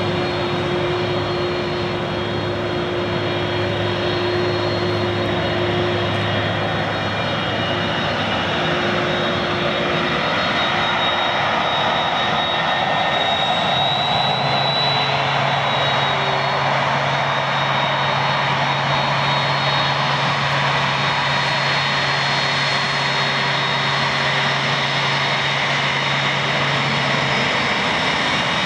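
Airbus A300-600 airliner taxiing, its twin turbofan jet engines at low thrust: a steady rushing whine over a low hum. It grows a little louder about a third of the way in, and the low hum shifts pitch about halfway as the aircraft turns.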